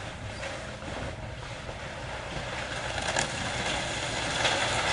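House being torn down by a diesel demolition machine: the engine running under a broad noise of crunching and grinding debris, growing louder over the last couple of seconds, with a sharp crack about three seconds in.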